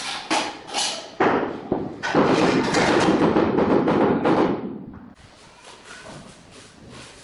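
A trowel scraping and spreading a sand-cement mortar bed for tiling, a dense scraping noise that fades out about five seconds in. A few sharp knocks come in the first second.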